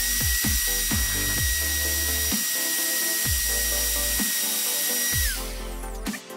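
Parkside POF 1200 D3 electric router running at a steady high whine while cutting a wooden board freehand, with a hiss of cutting noise. About five seconds in it is switched off, and the whine falls as the motor spins down. Background music with a steady beat plays throughout.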